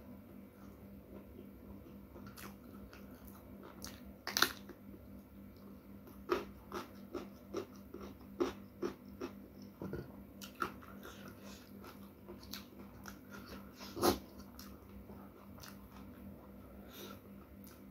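Close-miked chewing and crunching of food: a sharp crunch about four seconds in, a run of chewing crunches at about two or three a second in the middle, and another sharp crunch near the fourteenth second.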